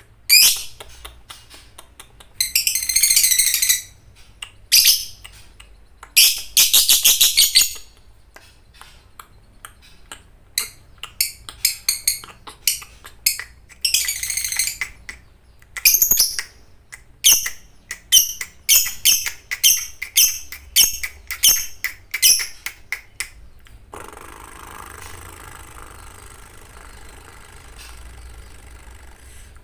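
Lovebird singing shrill, chattering calls: several long rolling trills (the 'ngekek' of a lovebird fighter) and many rapid short chirps. For the last few seconds the calls stop and a steady hiss takes over.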